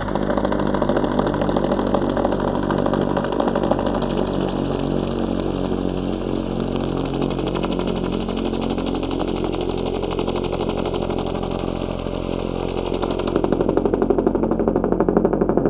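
Synthesized helicopter chopper: a rapid blade-slap pulse over a motor hum, made in NI Absynth from a looped waveform imported from a recording. Its pitches drift and the top end gradually dulls, and the pulsing grows stronger near the end.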